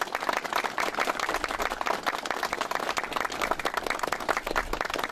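A group of people applauding: dense, steady hand-clapping.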